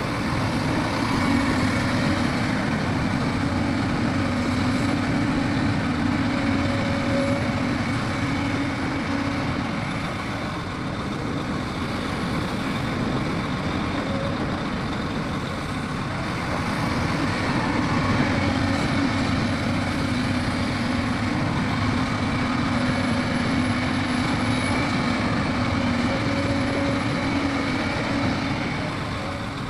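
Heavy diesel earthmoving machinery running steadily under load. Its level swells twice, each time for several seconds.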